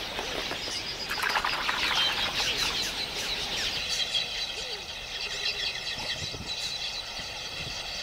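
A large flock of red-billed quelea chirping and chattering densely, with the rush of many wings. From about halfway a steady high-pitched drone joins in.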